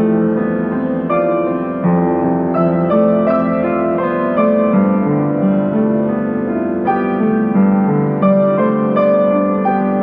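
Piano music: a melody of single notes over held chords, struck about twice a second.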